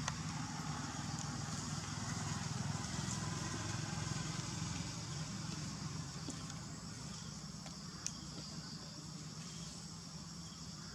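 A motor vehicle's engine running steadily as a low hum, growing fainter over the second half.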